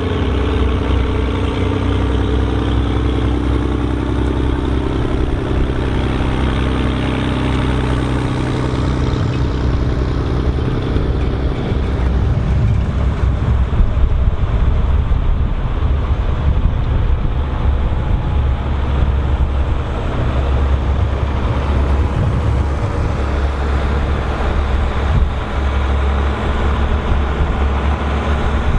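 Volvo BM 2654 tractor's six-cylinder diesel engine running under load while ploughing. It holds a steady note at first, then turns rougher and rumblier from about twelve seconds in.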